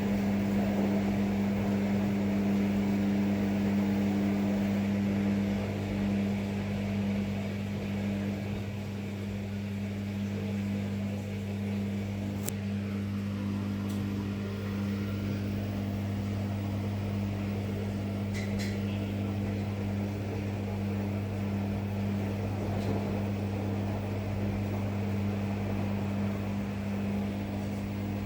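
Rex-Electrolux RJ 7160 TA washing machine running mid-cycle: a steady low hum over a rushing noise, with a couple of faint clicks past the middle.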